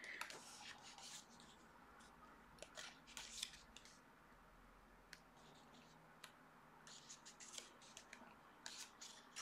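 Faint rustling and sliding of glossy photobook pages being turned by hand, in a few short flurries.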